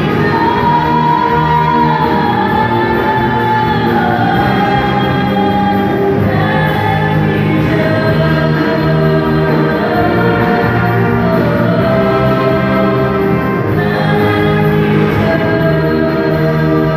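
A mixed group of singers singing a slow song together into handheld microphones, amplified over a PA, with long held notes that glide from one pitch to the next.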